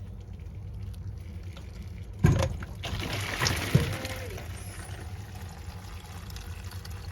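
Water draining from a freshly cut copper water supply pipe into a catch container, running louder for a second or two in the middle. A sharp knock comes about two seconds in and another just under four seconds in.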